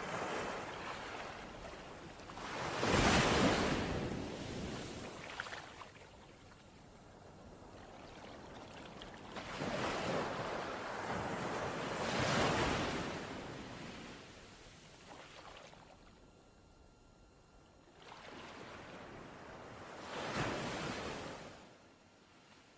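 Underwater ambience: a rushing wash of water that swells and fades in slow surges every few seconds, the strongest about three seconds in.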